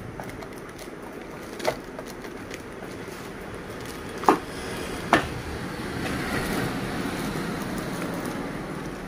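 Unboxing handling sounds: plastic packaging crinkling and rustling, with three sharp knocks as the siren amplifier and its parts are lifted out and set down. A steady background hum runs underneath.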